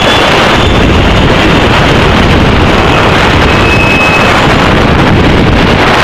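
Loud, steady wind rushing over the microphone of the rocket's onboard camera as the rocket falls back toward the ground.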